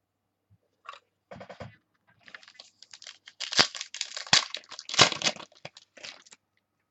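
Plastic card wrappers and sleeves crinkling and rustling as baseball cards are handled, with sharp clicks and crackles that are loudest in the middle.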